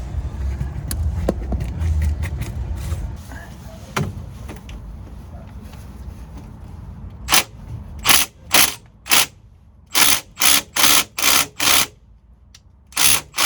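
Hand socket ratchet being worked back and forth on a bolt: short bursts of ratchet clicking about twice a second, in runs with brief pauses, starting about seven seconds in after some low handling knocks.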